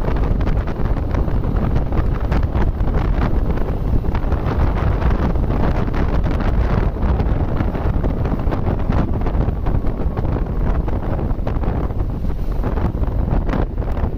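Wind buffeting the microphone of a moving motorcycle: a loud, steady, gusty rumble strongest in the low end.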